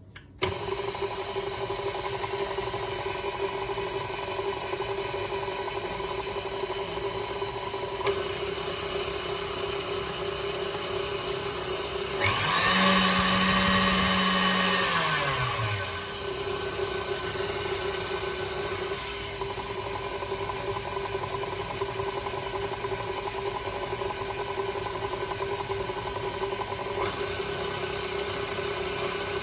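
KitchenAid Artisan's electric motor running with a steady hum. About twelve seconds in it gets louder for some four seconds, a lower tone rising, holding and falling back. The owner is unsure whether this noise is normal.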